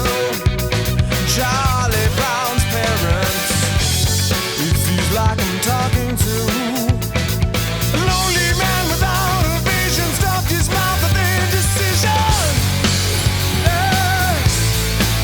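Alternative rock band playing an instrumental passage: drum kit, steady bass and a bending lead melody line.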